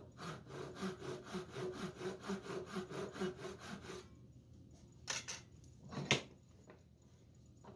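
Back saw cutting into a wooden block held in a vise, in quick, even strokes that stop about four seconds in. Then two sharp knocks about a second apart, the second one, a hammer striking the block, the loudest.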